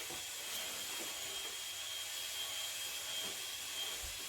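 Steady faint hiss with a thin, constant high whine, and a few faint handling sounds.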